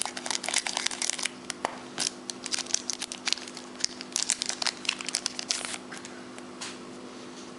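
Foil trading-card pack wrapper crinkling and crackling as it is handled and the cards are pulled out: dense, irregular crackles that thin out after about six seconds.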